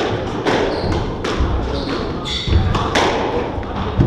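Squash rally: the rubber ball cracking off rackets and thudding against the court walls, a sharp hit every half second to a second, with rubber-soled shoes squeaking on the wooden floor between shots.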